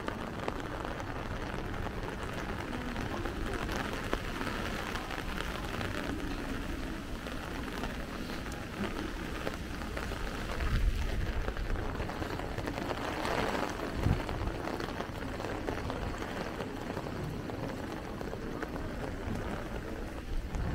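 Light rain falling on a city street, a steady hiss of rain. About halfway through there is a brief louder low swell, and a short thump follows a few seconds later.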